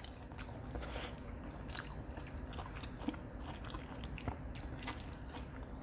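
A person chewing a mouthful of food close to the microphone: soft, irregular wet mouth clicks and smacks.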